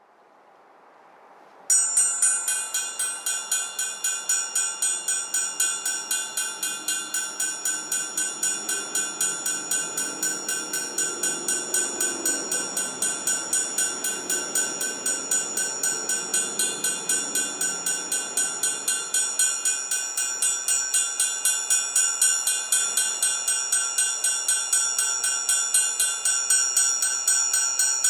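Amplified orchestral triangle struck in a fast, even tremolo, ringing with several steady high overtones. It starts faintly, then jumps sharply louder about two seconds in and keeps up the same rapid pulse.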